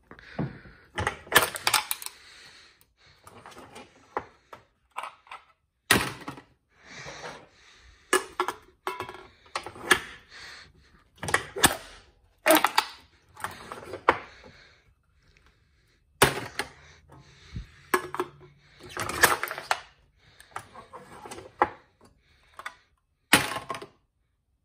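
Wall-mounted McKay lever can crusher flattening beer cans one after another: sharp metal clanks and crunching, crumpling bursts come in clusters every second or two.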